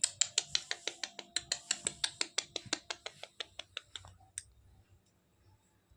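Cat lapping milk: a quick, even run of small wet clicks, about six or seven a second, that grows fainter and stops about four seconds in.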